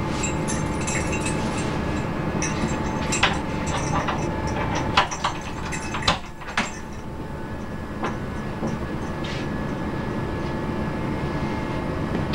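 Steady rumble inside a Sydney suburban electric train on the track, with several sharp knocks and clicks near the middle.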